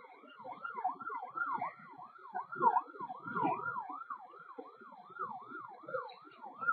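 Rescue vehicle's electronic siren yelping: a fast, repeated rise-and-fall wail, about three sweeps a second.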